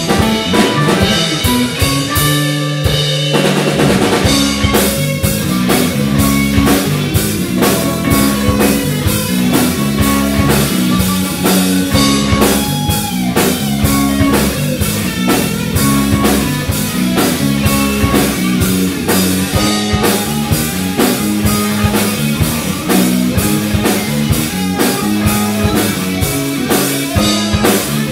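Live rock band playing a song: drum kit, electric guitar and bass guitar, with a brief break in the drums about three seconds in.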